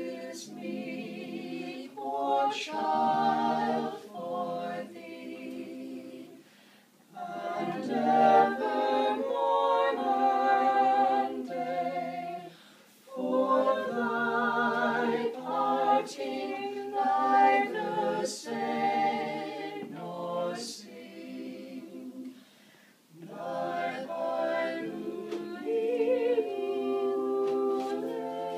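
Mixed vocal quartet of two women and two men singing Christmas music together a cappella. They sing in four long phrases with short pauses between them.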